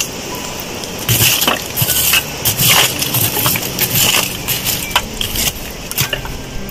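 Charcoal embers in the bottom of a metal-drum tandoor being stirred and broken up with a poker: a string of short scrapes and knocks starting about a second in and dying away near the end.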